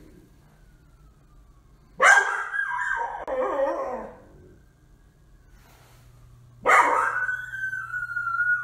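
A dog giving two long, loud howling barks about four and a half seconds apart. Each starts suddenly, holds a high note and then drops away.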